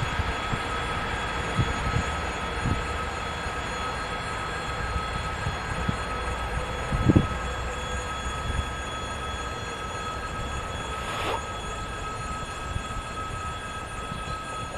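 Passenger train hauled by an EP1M electric locomotive rolling away: a steady rumble of wheels on rail that slowly fades, with a few short low thumps, the loudest about seven seconds in.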